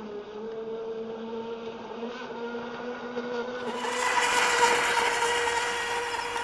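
Electric RC speedboat's 4S 3660 outboard motor running flat-out on the water: a steady high whine with spray hiss. It gets louder and brighter about four seconds in.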